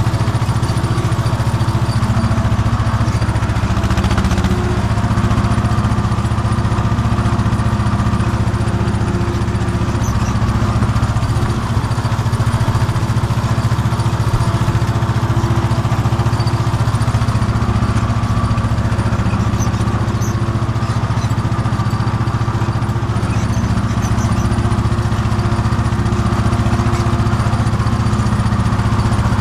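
Tractor diesel engine running steadily under load while pulling a tillage implement through a field, heard from inside the cab.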